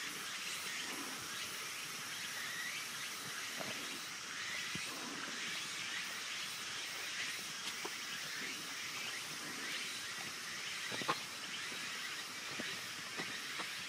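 Steady outdoor chorus of chirping insects and birds, with a few sharp clicks; the loudest click comes about eleven seconds in.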